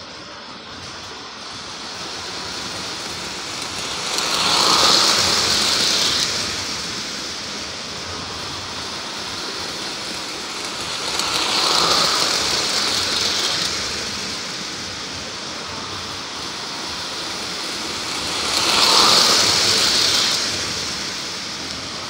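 Gray 763 Hudson model steam locomotive and Blue Comet passenger cars running around a loop of tinplate track, a steady rolling rush that swells three times, about every seven seconds, as the train passes close by.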